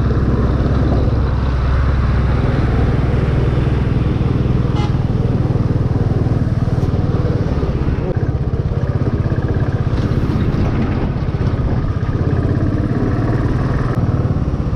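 Motorcycle engine running steadily on the move, with wind and road noise, on a rough, broken road. The deepest part of the engine rumble eases about a second in.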